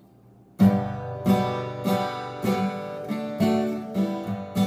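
Acoustic guitar strumming chords in a steady rhythm, about two strums a second, starting about half a second in: the intro of a country song.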